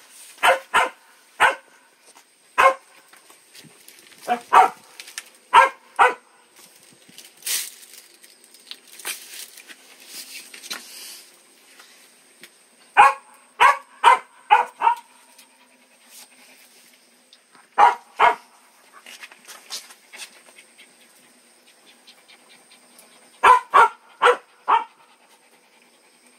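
A dog barking: short, sharp barks in irregular groups of one to five, with pauses of several seconds between the groups.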